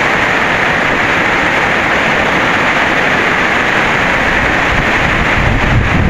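Steady hiss of rain falling, with gusts of wind buffeting the microphone near the end.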